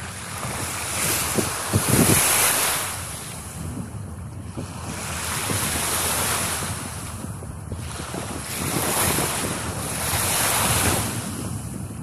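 Small sea waves washing and lapping in shallow water at the shoreline, swelling and fading every few seconds, with wind rumbling on the microphone.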